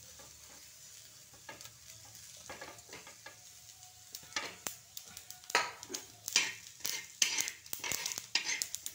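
Spatula scraping and stirring sliced onion, coconut, sesame and coriander seeds across a hot flat tawa, with a light sizzle, dry-roasting the masala ingredients. The strokes are faint at first and turn loud and quick, about two a second, from about halfway.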